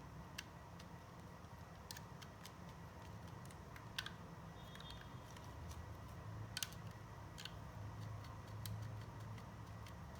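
Scattered light clicks and taps of LEGO plastic pieces being handled and fitted with rubber bands, a few separate clicks spaced a second or two apart over a low steady hum.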